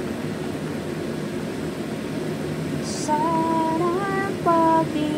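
Chicken and vegetable soup boiling hard in a pot, a steady bubbling hiss. About three seconds in, a woman's voice starts carrying a tune in long, held notes over it.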